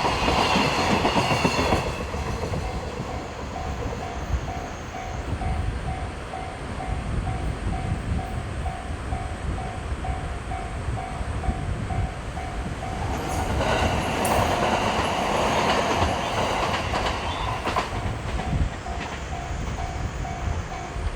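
Japanese railway level crossing warning bell ringing in an even repeated ding, about twice a second. A train runs over the crossing for the first two seconds, and another passes from about 13 seconds in for some five seconds, drowning the bell before it rings on.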